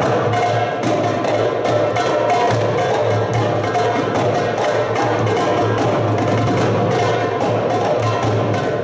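A gamelan ensemble playing a fast, steady stream of struck metal notes from metallophone and kettle gongs, with a low tone pulsing underneath.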